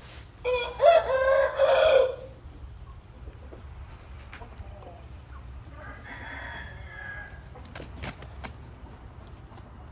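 A young rooster crowing: one loud crow starting about half a second in and lasting about a second and a half, with a fainter crow around six seconds in.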